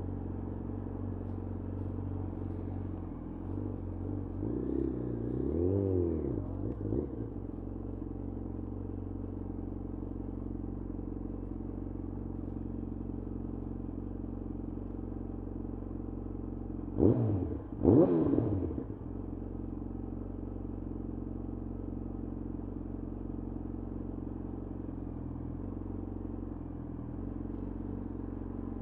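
2011 Yamaha FZ1's inline-four engine idling steadily, with one brief rise and fall in revs about five seconds in. Past the middle come two quick throttle blips about a second apart, the loudest moment.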